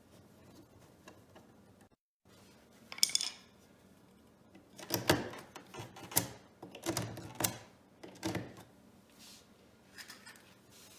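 Hand work on an electrical outlet and its mounting hardware: a sharp click about three seconds in, then a run of knocks and clatter from about five to eight and a half seconds.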